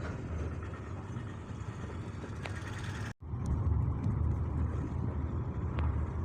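Steady low rumble of city street traffic, with the sound cutting out for an instant about three seconds in.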